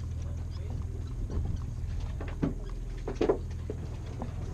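Steady low drone of the fishing boat's machinery, with a few short knocks on deck, the loudest about three seconds in.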